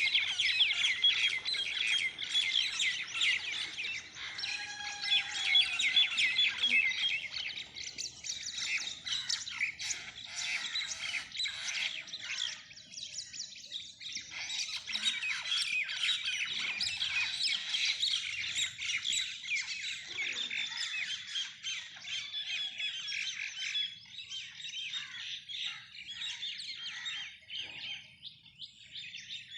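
Birds giving a dense, rapid chatter of harsh squawks and chirps, as birds do in a fight. The chatter thins briefly about halfway through, then picks up again.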